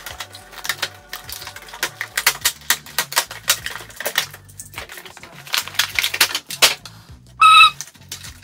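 Rapid clicking and crackling of an action figure's plastic blister packaging and cardboard box being cut and pried open, over quiet background music. A short, high-pitched tone about seven and a half seconds in is the loudest moment.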